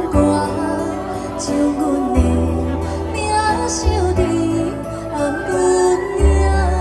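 A young girl singing a Taiwanese Hokkien ballad into a microphone through a stage sound system, over a backing track with a steady bass line.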